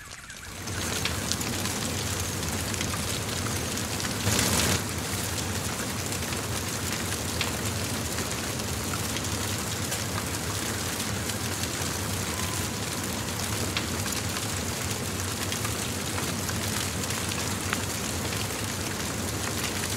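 Fire crackling over a steady hiss, with many small snaps, and a brief louder surge about four seconds in.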